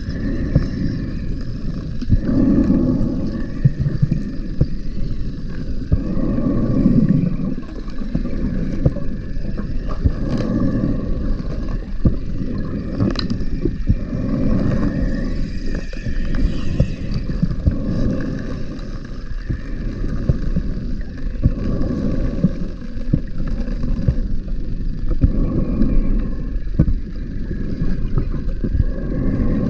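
Scuba diver breathing through a regulator underwater, each exhale letting out a rumble of bubbles every few seconds, with scattered clicks and knocks.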